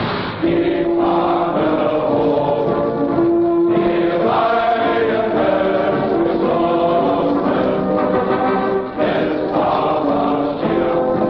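Choral music: a choir singing long held notes that change pitch step by step.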